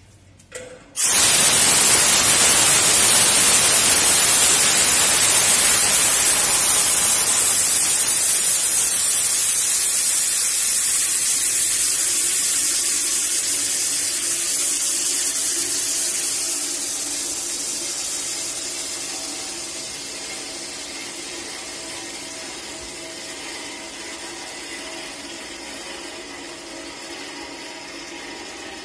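Compressed air hissing out of a car washing lift's air valve. It starts suddenly about a second in, then slowly fades as the pressure drops.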